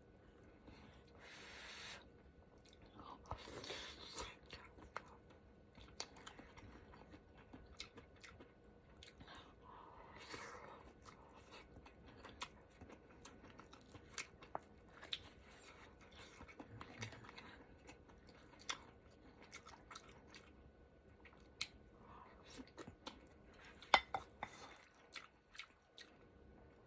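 Close-miked chewing and mouth sounds of someone eating a ramen hot pot, with many scattered sharp clicks and a louder click near the end.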